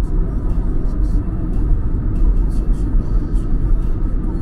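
Steady low rumble of a moving intercity train, heard from inside the carriage.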